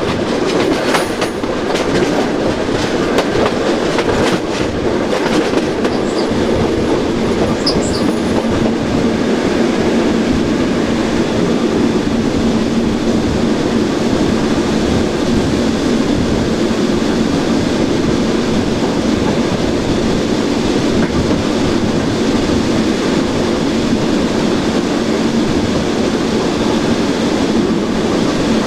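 Modernised SNCB AM80 electric multiple unit running steadily along the line, heard from inside: a constant motor hum with a steady low tone, and wheels clicking over rail joints in the first several seconds.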